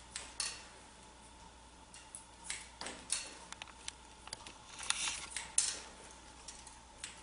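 Hair-cutting scissors snipping through short hair: irregular crisp snips, a few at a time, most frequent in the middle seconds.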